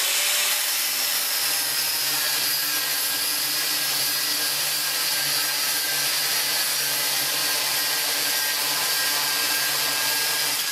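Angle grinder with a thin cutting disc running steadily under load as it cuts through a metal threaded rod, a continuous high grinding hiss over the motor's hum.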